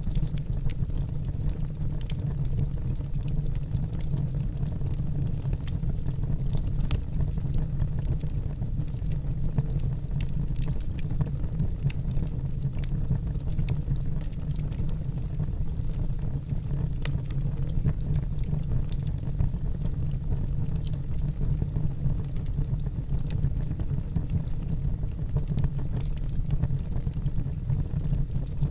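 Wood fire burning in a fire pit: a steady low rumble with scattered sharp crackles and pops.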